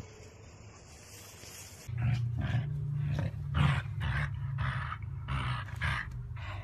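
Dachshund play-growling over a toy held in its mouth: a loud, low, continuous growl with a rhythmic pulse about twice a second, starting suddenly about two seconds in.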